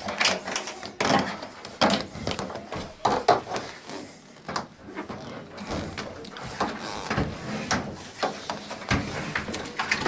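Irregular knocks, clicks and scraping as a washing machine's plastic hoses are handled and the machine is shifted into place.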